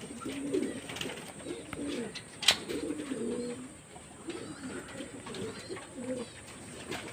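Domestic pigeons cooing over and over in a loft, low wavering calls, with a single sharp click about two and a half seconds in.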